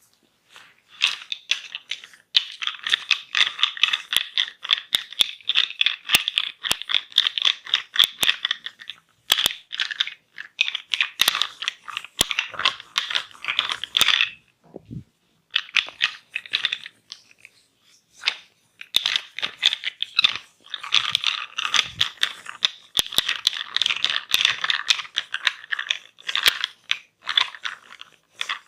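Close-miked crackling and scratching from hands working on a person's head. The rapid crackles come in long runs with short pauses, and there is a soft low thump about halfway through.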